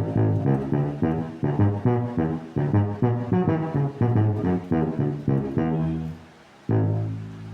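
Electric bass played through a Zoom B1X Four multi-effects pedal set to a tuba-emulation patch: a run of short, detached staccato notes, then one long held low note near the end.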